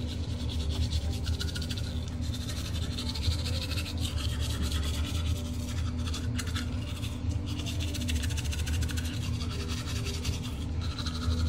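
Teeth being brushed with a bamboo toothbrush: fast, steady back-and-forth scrubbing of the bristles, over a steady low hum.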